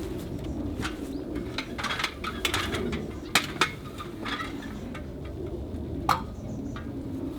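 Hard clinks and knocks from bricklaying work as tools and bricks are handled, with a few short scrapes and several sharp knocks, the loudest just after three seconds in and near six seconds.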